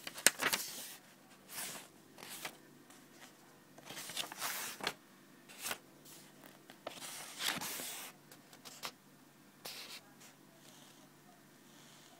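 Paper pages of a book being handled and turned: a string of short, irregular rustles and flicks. The loudest comes just after the start, and a longer one about seven seconds in.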